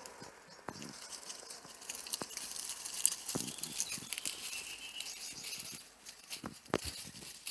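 Young nine-banded armadillos rooting and scratching through dry leaf litter, making scattered crackles and rustles.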